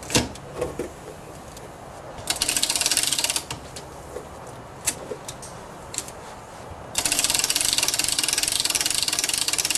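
A greased clock mainspring being wound up on a hand-cranked Webster mainspring winder, its ratchet clicking rapidly. The clicking comes in two spells of cranking, a short one a couple of seconds in and a longer one from about seven seconds in, with a few single clicks between.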